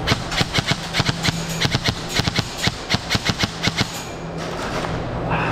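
Quick footsteps of a person running on a concrete floor, about four to five steps a second, stopping a little before four seconds in. A steady low hum runs underneath.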